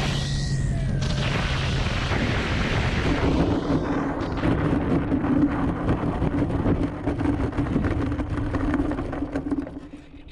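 Wind rushing over a wing-mounted camera on a radio-controlled T-6 Texan model as it lands. This is followed by the motor running at idle while the wheels rattle over grass during the rollout. The sound dies away about ten seconds in as the plane stops.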